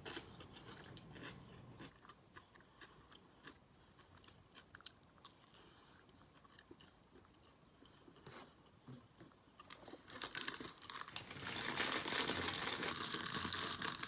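A person chewing food close to the microphone, with faint wet mouth clicks. About ten seconds in, a much louder, dense crackling starts.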